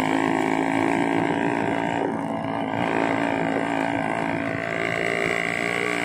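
Small engine running steadily, as of a motorcycle carrying the rider along the road, its pitch shifting slightly about two seconds in and again near the end.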